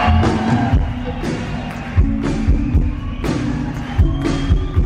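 Live band music played loud through an arena PA: held low bass notes with irregular heavy drum hits about every half second to a second.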